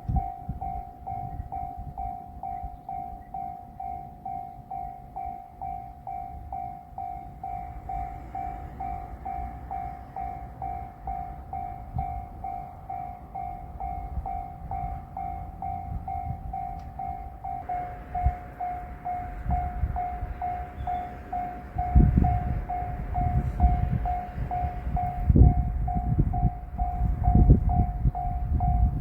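Japanese railroad crossing alarm ringing steadily at about two to three rings a second. A train joins it from about 18 seconds in, with a low rumble and heavy clanks of wheels over rail joints growing louder from about 22 seconds.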